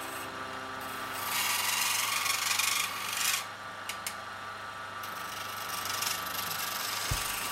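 Wood lathe turning chisel cutting a spinning wooden blank: a continuous rasping scrape that swells and eases as the tool is worked along the wood, dipping briefly about halfway through.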